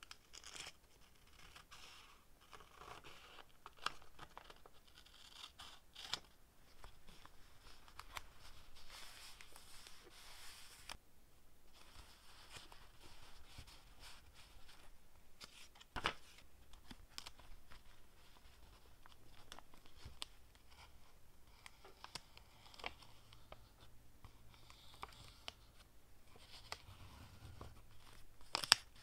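Paper crafting sounds: scissors snipping through paper, then paper rustling, being laid down and smoothed onto a notebook page, with scattered sharp clicks and taps, the loudest about halfway through and near the end.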